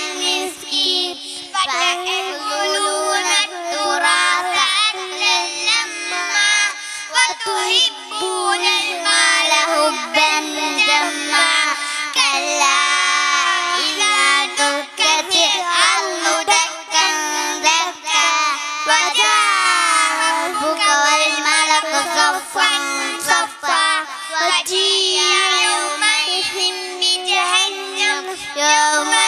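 Young boys singing a song together into microphones, their voices wavering and sliding in pitch without a break.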